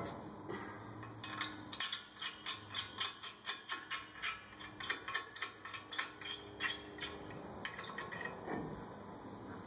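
New brake rotor being turned by hand on the pickup's front wheel hub, giving a steady ratchet-like run of sharp clicks about four to five a second that stops near the end.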